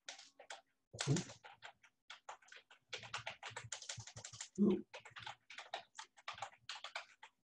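Typing on a computer keyboard: a quick, irregular run of key clicks, with one louder, duller keystroke a little past the middle.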